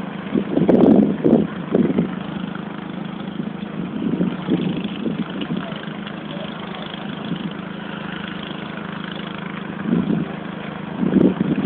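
A steady engine hum with wind buffeting the microphone in gusts, strongest in the first two seconds and again near the end.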